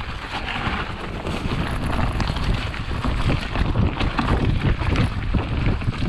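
Wind buffeting the microphone of a bike-mounted or body-mounted camera on a fast mountain-bike descent, with tyres rolling and crunching over dry fallen leaves and many small rattles and knocks from the bike on the rough trail.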